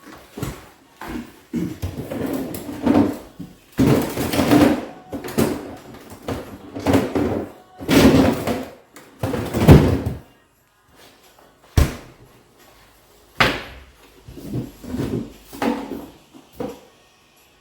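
Irregular knocks, bumps and rustling handling noise in a small room, loudest about four, eight and ten seconds in, with a couple of sharp clicks after that.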